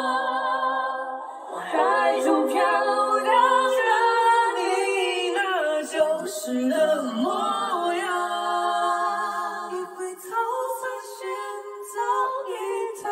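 A male singer's high voice vocalising without words into a microphone: a long held note with vibrato, then flowing runs that slide up and down in pitch, with no bass or drums underneath.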